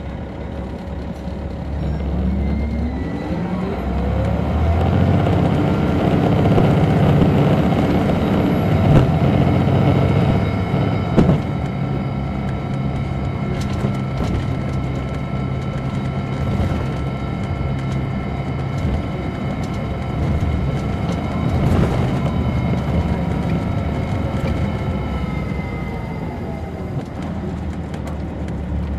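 Caterpillar C13 ACERT inline-six diesel of a 2007 MCI D4500CL coach, heard from on board. The engine note rises as the bus accelerates in the first few seconds, then runs steadily at road speed and eases off near the end. There are two sharp knocks around nine and eleven seconds in.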